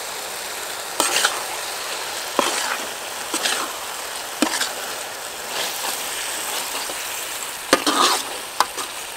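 Beef sizzling in hot oil in a wide black pan, with a metal spatula scraping and stirring through the meat in short strokes every second or so.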